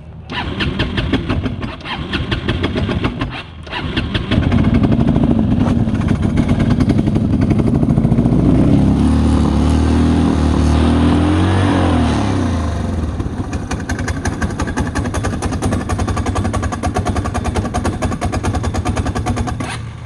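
Feishen FA-D300 Chinese 300 cc ATV engine running warm. It is uneven in the first few seconds, revved up and down with the throttle around the middle, then settles to a rough idle. The engine won't hold idle without throttle, and the owner hears a pinging at idle that he thinks could be a crank bearing or the piston rings.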